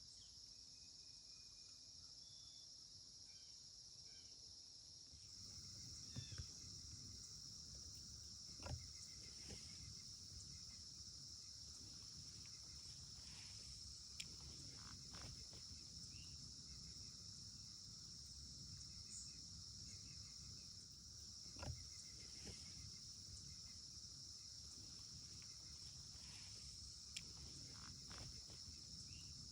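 Faint steady high-pitched chorus of crickets, a little louder after about five seconds, with a few small clicks.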